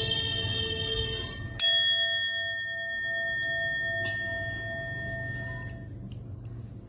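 Metal bowl bell resting in the palm, ringing with a clear, pure tone. One ring is already sounding and breaks off about one and a half seconds in. A second strike follows, and its several steady tones ring on and fade away over about four seconds.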